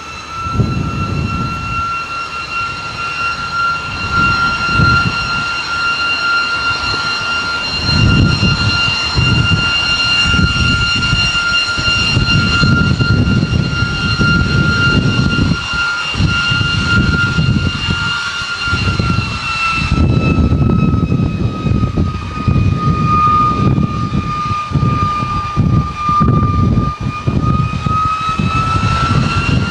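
De Havilland Vampire T11's Goblin turbojet whining steadily as the jet taxis and turns on the runway, over an uneven low rumble. The whine drops slightly in pitch about two-thirds of the way through, then climbs again near the end.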